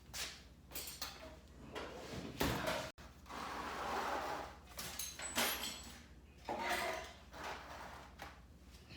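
Metal engine parts being handled during a teardown: scattered clicks and knocks, with a longer sliding scrape about three seconds in.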